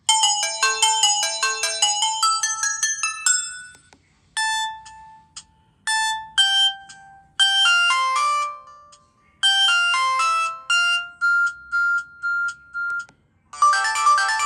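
Samsung GT-E1081T mobile phone playing its built-in ringtones, one after another. A quick, high-pitched melody stops just before four seconds in. A slower, sparser tune follows and ends on one held note. A new ringtone starts near the end.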